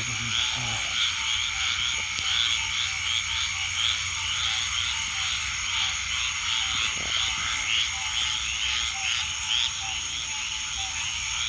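Night chorus of frogs: short high-pitched calls repeated about three times a second over a steady, unbroken high trill.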